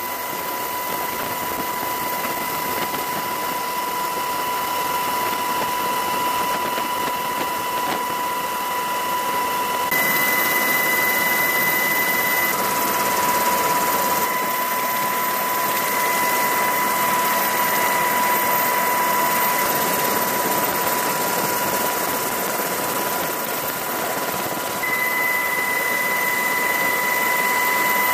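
Steady turbine and rotor noise of a UH-60 Black Hawk helicopter heard from aboard in flight, with a steady high whine over the rush.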